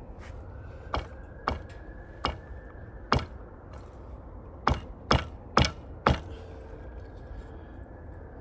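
Eight sharp, short wooden knocks at uneven intervals of about half a second to a second and a half, the last four louder and closer together: pieces of wood being struck or knocked together.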